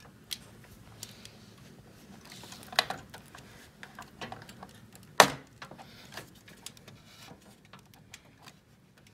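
Scattered clicks and knocks from an Aorus graphics card and the metal PC case being handled as the card is fitted into its slot and fastened to the chassis. The loudest click comes about five seconds in, with another about three seconds in.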